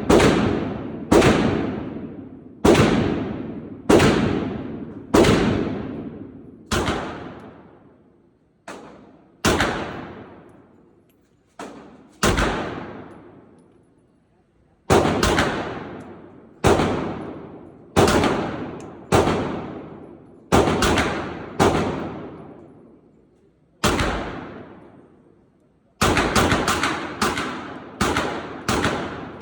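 Gunshots fired one after another, each with a long echoing decay: about twenty shots, mostly a second or so apart, with a pause near the middle and a quicker string of shots near the end.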